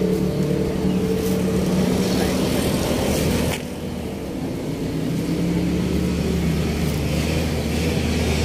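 A motor vehicle engine running steadily with a low, even hum; after a short knock about three and a half seconds in, its note is lower and a little quieter.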